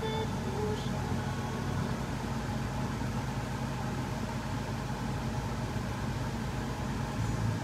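Vehicle engine idling steadily, heard from inside the cabin as a low, even hum.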